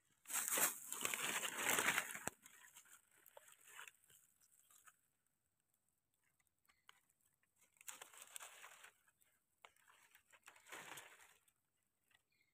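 Dry leaf litter rustling and crackling under hands, loudest in the first two seconds, with a few softer rustling and scraping bursts later as a wild mushroom is handled and its stem trimmed with a small knife.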